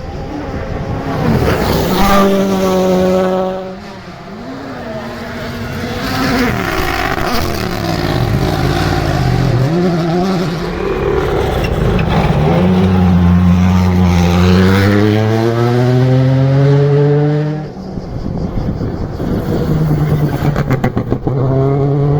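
Rally car engines at full throttle, their pitch climbing repeatedly as they accelerate through the gears, over several passes. The sound drops off abruptly twice, about four seconds in and again near the end.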